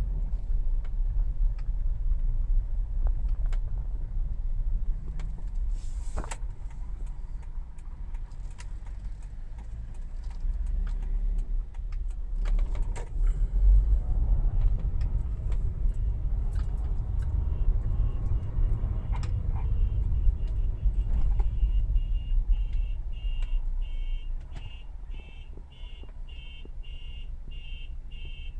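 Low engine and road rumble heard inside a car's cabin as it moves slowly in traffic, easing off near the end. From about two-thirds of the way in, a high electronic beep repeats about twice a second.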